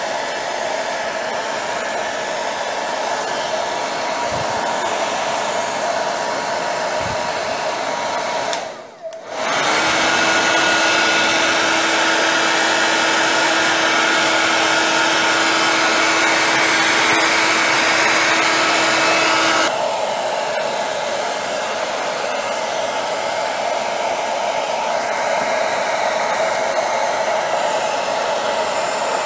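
Electric hair dryer blowing steadily to dry wet paint. It cuts out briefly about nine seconds in, then comes back louder with a steady whine for about ten seconds before dropping back to its earlier level.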